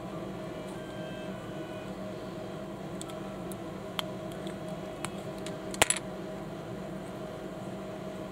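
Small plastic building bricks clicking and snapping as they are handled and pressed together: a few scattered light clicks, then a louder double snap about two-thirds of the way through, over a steady background hum.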